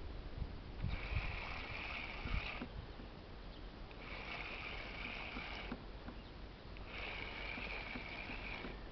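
Spinning reel cranked in short spells of about a second and a half, three times, with pauses of about the same length between: the stop-and-go of a stepped jig retrieve. Light low knocks and rumble from the boat run underneath.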